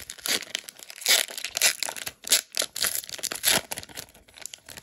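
Foil wrapper of a Pokémon booster pack crinkling and tearing as it is ripped open and the cards are pulled out: a quick run of sharp crackles, busiest in the middle and dying away near the end.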